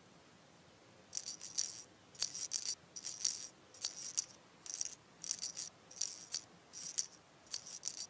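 A shaken rattle, like a maraca, playing short bursts in a loose rhythm, about two a second, starting about a second in.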